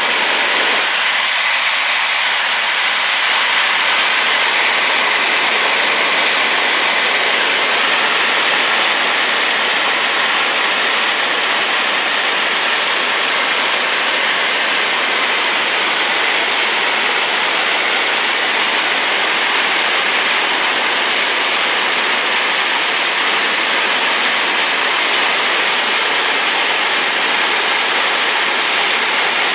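Rain-swollen waterfall pouring with a steady, loud rushing, strongest in the mid to high range and thin in the bass.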